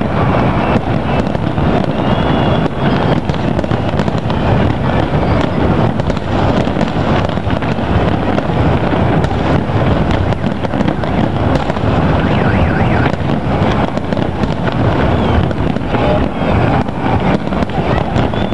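Fireworks display: many aerial shells bursting in quick succession, their bangs and crackle running together into a continuous loud barrage.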